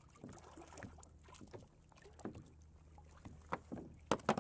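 Small herring and tiny mackerel on a herring rig, flapping and knocking against the kayak as the string of fish is lifted aboard: scattered light taps, with a quick cluster of sharper knocks near the end.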